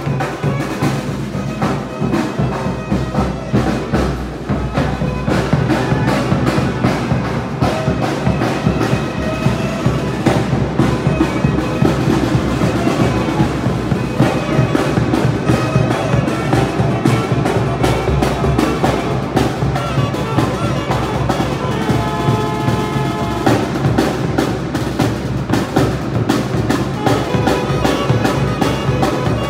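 Tamborazo band playing live: saxophone and brass carrying the melody over a tambora bass drum keeping a steady beat.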